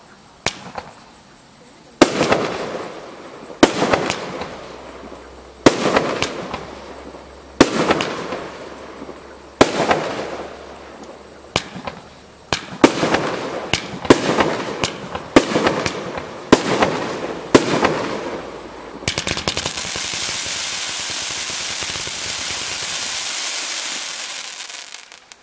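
A 500-gram, 59-shot consumer firework cake firing. Single sharp bangs come about every two seconds, each trailing off over a second or so, then quicken to about two a second around the middle. A steady hiss follows for about five seconds near the end.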